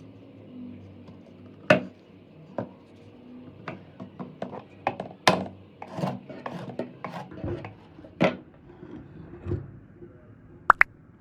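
Irregular clicks and knocks of a pair of metal pliers being handled, with the loudest about two, five and eight seconds in.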